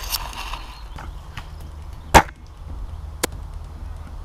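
A single sharp, loud shot from an airsoft sniper rifle about two seconds in, followed about a second later by a fainter sharp click.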